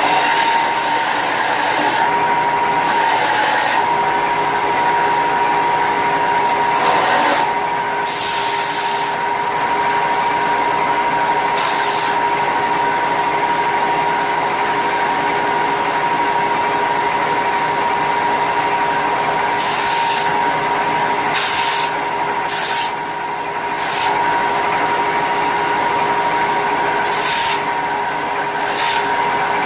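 Electric power tool running steadily with a whine, worked against the prototype's surface, with repeated short bursts of harsher hiss as it bites into the material.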